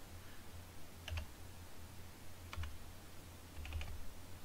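A few scattered keystrokes on a computer keyboard, in small clusters about a second apart, over a low steady hum.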